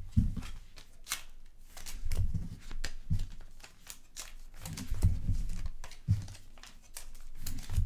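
Trading cards and their pack wrappers and boxes being handled on a table: rustling, crinkling and light clicks, with a few dull knocks.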